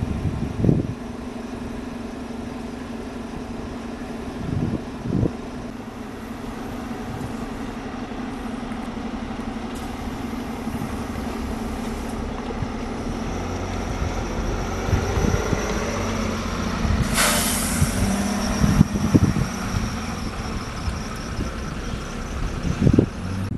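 A large road or rail vehicle's engine running steadily, its note shifting and growing heavier about halfway through. About two-thirds of the way in comes a short loud hiss of air, typical of an air brake.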